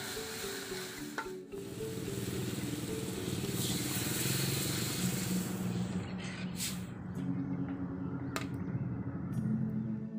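Background music over coconut milk sizzling in a hot metal wok on chili paste. The hiss is strongest in the first half and then thins out. A metal ladle knocks against the pan twice in the second half.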